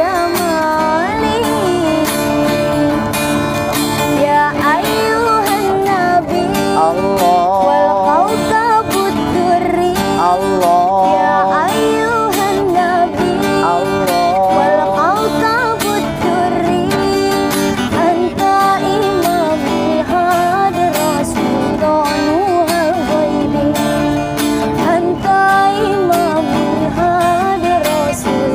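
A woman singing a sholawat, a devotional Islamic song, in a wavering, ornamented melody, accompanied by a strummed acoustic guitar.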